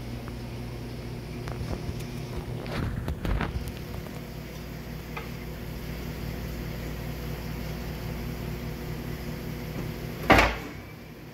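Steady low machine hum, like a fan or appliance running, with a few soft knocks and handling rustles a couple of seconds in and a single sharp thump near the end.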